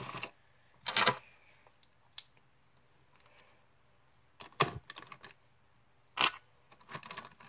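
Plastic pieces of a Gear Cube twisty puzzle clicking and clacking as they are set back into place by hand: about five separate sharp knocks, a second or more apart.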